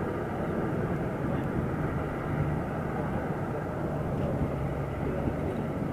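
Kubota DC-35 rice combine harvester's diesel engine and threshing machinery running at a steady working drone while it harvests.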